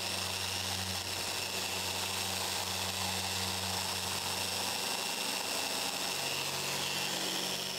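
Festool random orbital sander running steadily while sanding oak plywood, a constant low hum under a high whine and a hiss of abrasive on wood.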